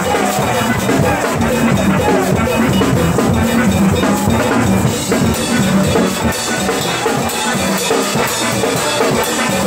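A steel band playing live: many steel pans struck with sticks, over a drum kit keeping a steady beat.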